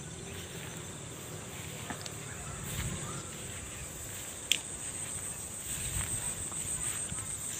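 Insects chirping in a steady, high-pitched pulsing trill, with a single sharp click a little past halfway.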